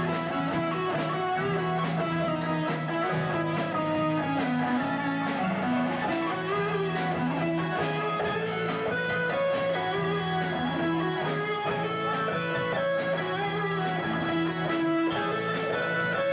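Guitar music: strummed guitar with a melody line moving above a low note held for long stretches.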